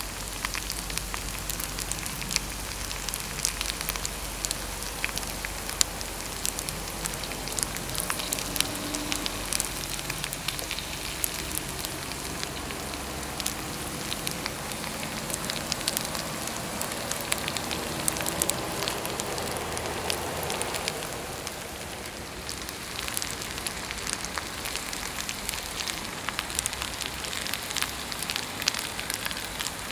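Pepper rice sizzling in a hot pan: a steady hiss thick with small crackling pops.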